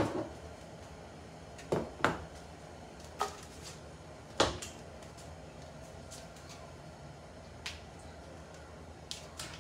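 Kitchen handling noises: about half a dozen short, sharp knocks and clicks, spaced irregularly, as things are moved about at the counter and cupboard, over a faint steady background hum.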